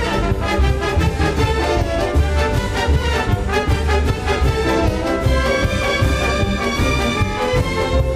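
Symphony orchestra playing a rhythmic piece, with strings and brass over a steady pulsing bass beat.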